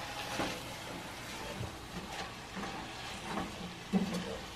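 Wooden spoon stirring chopped greens in a stainless steel pot, with a few soft scrapes over a low, even sizzle of the greens cooking.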